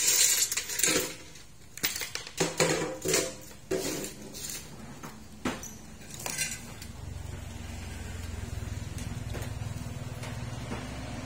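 Metal tools being handled on a workbench, clinking and clattering in a run of sharp knocks for about six seconds. About seven seconds in, a steady low hum starts.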